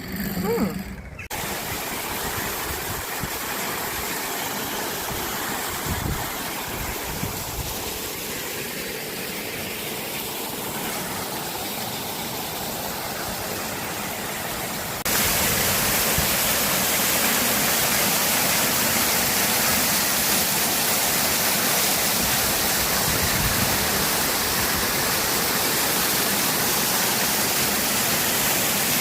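Waterfall: a steady rush of falling water, which turns suddenly louder and brighter about halfway through.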